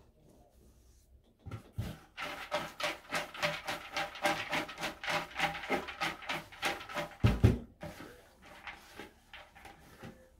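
Raffle tickets being mixed for a drawing: rapid rhythmic rustling and scraping, about four strokes a second, with a few low thumps. It fades near the end.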